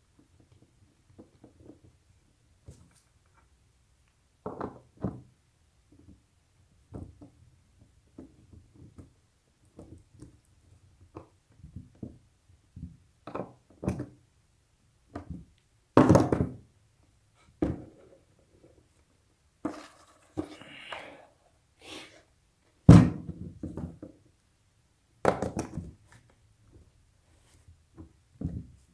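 Irregular clicks and knocks of skateboard wheels, bearings and axle nuts being handled and fitted onto metal trucks, with two louder thunks partway through and a brief scraping rustle between them.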